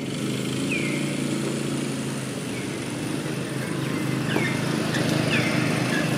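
A motor vehicle's engine runs steadily nearby, with a few short, falling bird chirps over it.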